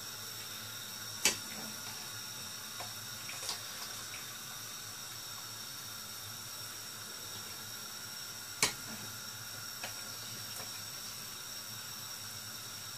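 A wide pan of rice water boiling steadily, with sharp clicks of a metal slotted ladle knocking against the steel pot as par-boiled basmati rice is scooped across: a loud one about a second in and another after about eight and a half seconds.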